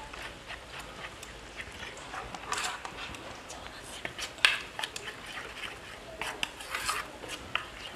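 Thick flour-and-water batter being worked in a steel bowl to break up the lumps: irregular wet squelches and slaps with scattered clicks against the bowl, the sharpest about four and a half seconds in.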